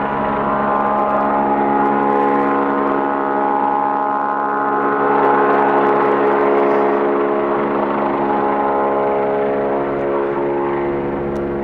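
Helicopter in flight, its rotor and turbine giving a steady hum of many even tones that swells a little about halfway through.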